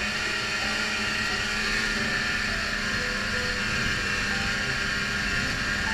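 Snowmobile engine running steadily at speed while riding, with a constant steady rush over it.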